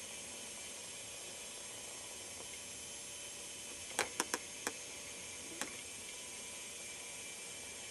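Steady camcorder hiss, broken about four seconds in by a quick run of four sharp clicks and one more about a second later, from the camera being handled as it is swung and re-aimed.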